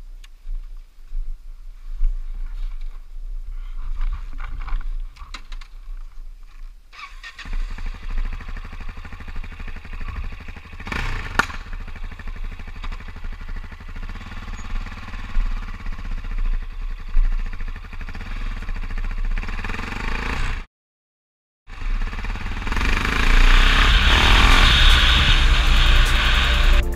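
Yamaha XT660Z Ténéré's single-cylinder engine running as the bike is ridden, picked up by a handlebar-mounted camera. The sound cuts out for about a second near the end and comes back louder, with more hiss.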